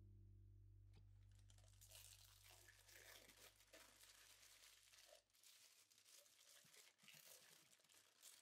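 Plastic cling film crinkling faintly and irregularly as a hand gathers and twists it closed, starting about a second in, over the fading end of background music.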